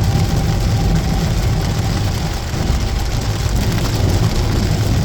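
Steady low rumble of an engine running, with a faint steady tone that fades out about two seconds in.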